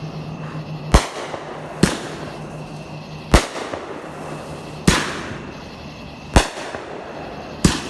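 Fireworks going off: six sharp, loud bangs at uneven intervals of about one to one and a half seconds, some followed by a short echo.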